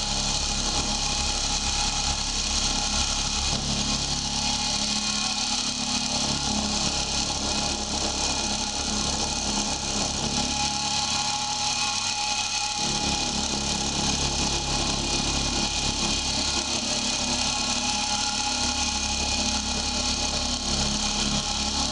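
Drill press running steadily with an end mill, milling a flat surface on metal: a continuous motor hum with a steady hiss above it.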